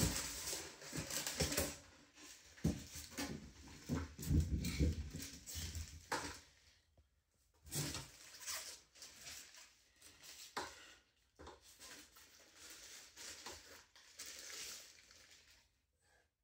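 Handling noises from an electric scooter being lifted and moved about: irregular knocks, clicks and thumps of its frame and stem, with a sharp knock at the start and heavier thumps about four seconds in.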